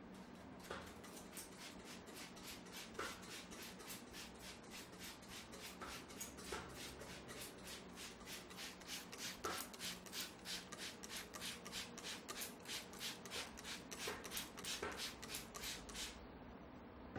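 Hands rubbing rhythmically over hair and scalp in a head massage, about three hissy strokes a second, with a few sharper clicks among them. The strokes stop about a second before the end.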